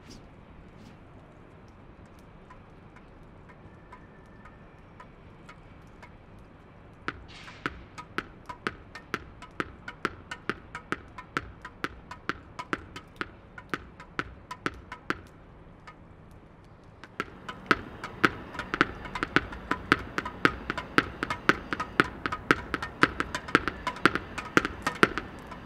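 Tennis ball bounced repeatedly on stone paving with a racket: sharp taps from the ball striking the ground and the racket, about two or three a second, starting about seven seconds in. After a short pause the taps resume, louder and about twice as fast.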